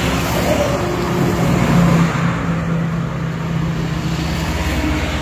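Mahindra TUV's turbocharged diesel engine revved up and held at raised revs, running steadily. It is being free-revved to check the exhaust for the white/blue smoke a failed turbocharger had caused.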